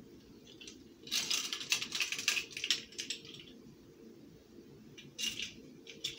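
Light clicking and clatter from plastic measuring spoons and a small vanilla extract bottle being handled: a quick run of small clicks for a couple of seconds starting about a second in, and a short burst again near the end.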